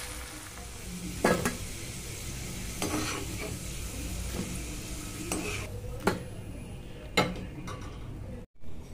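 Potato fries deep-frying in hot oil in a kadai, a steady sizzle, with a slotted steel spoon clinking sharply against the pan and a steel bowl several times as fries are lifted out.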